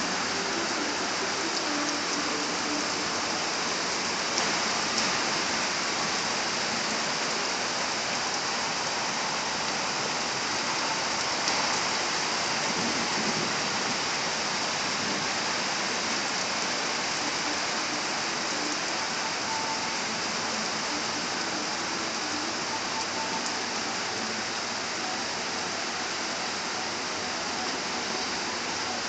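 Heavy spring rain falling steadily, a dense even hiss of downpour on the deck, foliage and yard.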